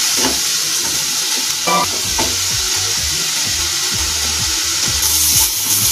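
Onions frying in hot oil in a nonstick kadhai, sizzling steadily. A slotted plastic spatula scrapes and stirs them in repeated strokes as they are sautéed.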